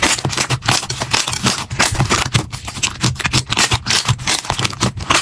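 Slime being squeezed and pressed by hand, giving a dense, uneven run of crackling and popping clicks.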